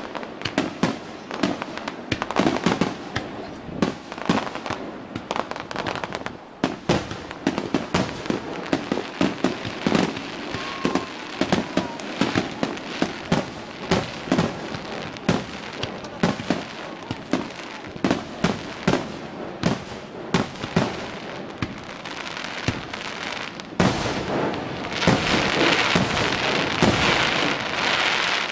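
Aerial fireworks bursting in a rapid barrage, many sharp bangs a second with echo. About 24 seconds in it turns into a dense, continuous crackling, as crackling shells go off together.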